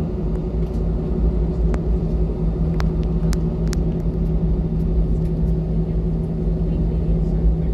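Airbus A320 cabin noise: a steady rumble of engines and airflow with a constant low hum, and a few light clicks scattered through it.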